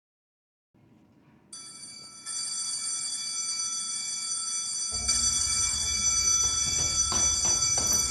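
An electric school bell ringing steadily for several seconds, the end-of-day bell. A low rumble joins it about halfway through.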